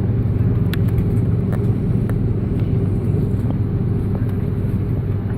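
Steady low rumble inside the cabin of an Airbus A330-300 airliner, with its engines and air systems running, and a few faint clicks from the cabin.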